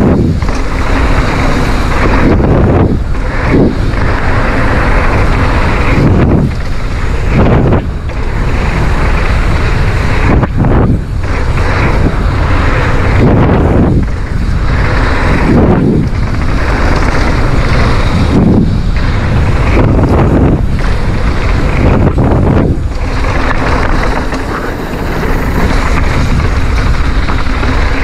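Wind roaring over a GoPro's microphone together with tyre and frame noise from a mountain bike riding a downhill bike-park trail, surging and dipping every few seconds.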